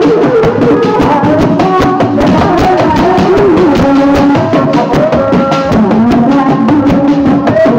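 Sundanese reak ensemble playing: hand-beaten dogdog drums in a fast, steady rhythm, with a pitched melody line that holds notes and slides between them.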